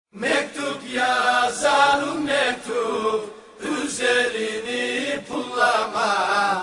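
A solo voice singing a slow, ornamented Turkish folk song, in phrases with wavering held notes and a short pause about halfway through.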